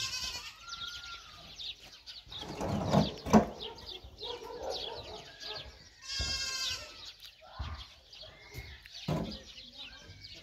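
A goat bleating twice, once right at the start and again about six seconds in, with low voices in between and a sharp knock about three seconds in.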